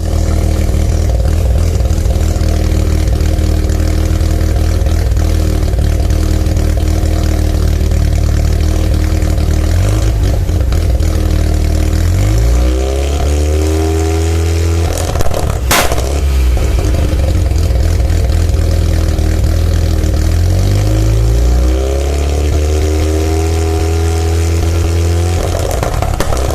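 Mazda RX-7 SA22C's turbocharged 13B rotary engine, cat-deleted, idling steadily, then revved twice with the pitch rising and falling back. A single sharp pop comes from the exhaust about sixteen seconds in as the revs come down.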